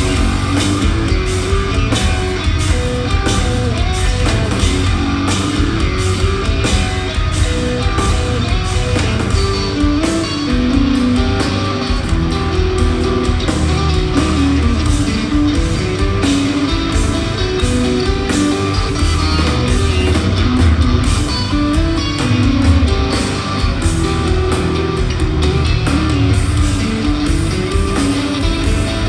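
Live instrumental progressive metal from two electric guitars and a drum kit, with busy, fast guitar lines over dense drumming, recorded from within the crowd.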